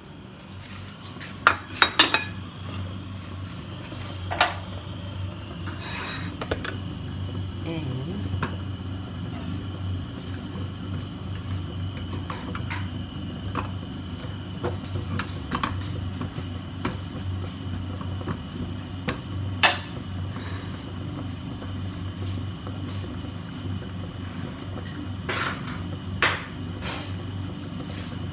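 Kitchen utensils clattering: scattered sharp knocks of metal tongs and cookware as bacon is turned in a frying pan, the loudest about two-thirds of the way through. Under them runs a steady low hum.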